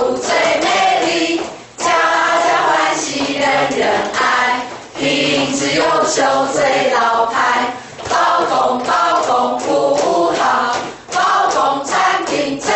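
A mixed group of voices, mostly women, singing a company song together, phrase by phrase with brief pauses between the lines.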